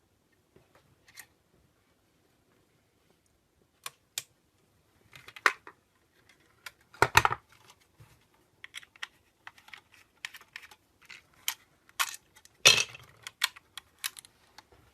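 Irregular sharp clicks and knocks of hard objects being handled, sparse at first and then coming thick and fast, with two heavier knocks, about seven seconds in and again near the end.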